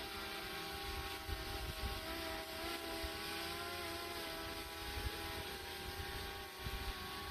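Camera drone hovering overhead: its propellers give a steady buzz of several held tones that waver slightly in pitch. Wind gusts on the microphone.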